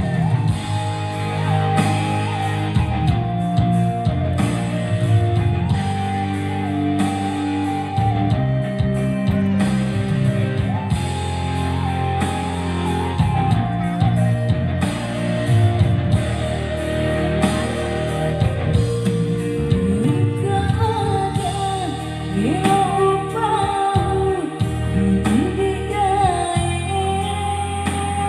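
A song played by a band with guitar and drums, with a voice singing the melody.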